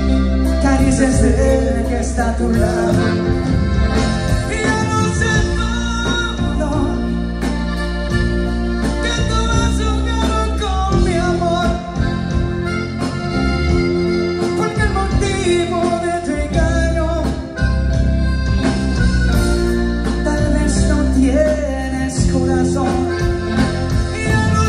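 A live grupera band playing through a PA: a sung melody over electric guitars, accordion and drums, with a steady beat.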